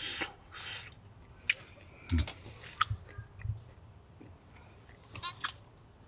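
A person eating: chewing, with short noisy mouth sounds and a few sharp clicks.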